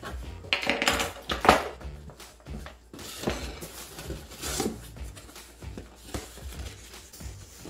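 A cardboard shipping box being opened by hand: irregular rips, scrapes and knocks of cardboard and packing tape, the loudest about one and a half seconds in.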